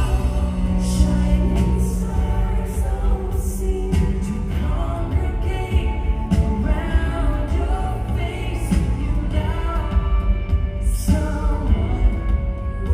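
Live pop band with guitar playing a song with sung vocals, heard from the audience in a large arena.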